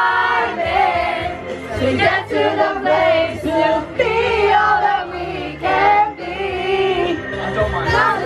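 A group singing along together over a karaoke backing track, several voices at once, some into microphones.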